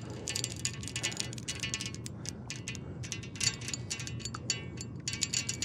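Drag of a Shimano Torium 30HG conventional casting reel clicking rapidly in spurts as a hooked sturgeon runs and strips line off against it.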